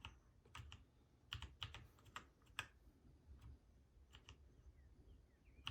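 Faint, irregular key clicks from an Epomaker mechanical keyboard as keys are pressed one at a time, about a dozen strokes unevenly spaced.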